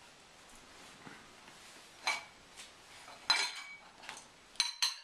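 Metal silverware clinking against the dishwasher's cutlery basket and rack as pieces are pulled out one at a time. A few separate clinks begin about two seconds in, the loudest a ringing clink a little past the middle, with a quick run of clinks near the end.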